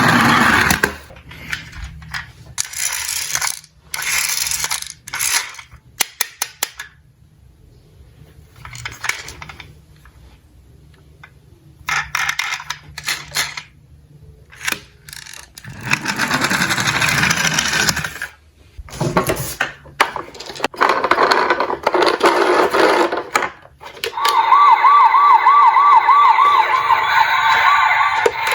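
Diecast toy cars rolling down a slope in a series of runs, each a burst of rolling clatter, with a quick rattle of metal clicks about six seconds in. A warbling siren starts near the end.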